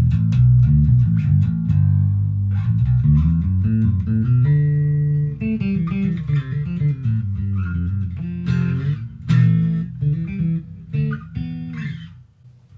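Squier Affinity Series six-string electric bass played with the fingers: a run of plucked notes low in the register, with a held note about four and a half seconds in and two sharp, hard-plucked notes around eight and a half and nine and a half seconds. The playing stops shortly before the end.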